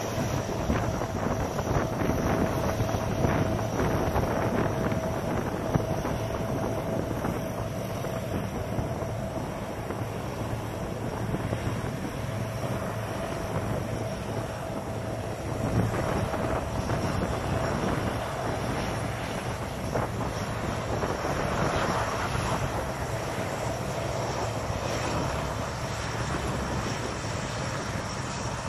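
Lockheed C-130 Hercules turboprop engines running off in the distance, a steady drone with a thin held tone that fades about halfway through, mixed with wind on the microphone.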